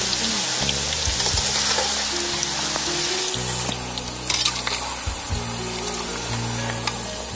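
Tapioca chips deep-frying in hot oil in a wok, a steady sizzle, with a few clinks and scrapes of a perforated metal ladle against the pan about four seconds in as the chips are turned. Background music plays under it.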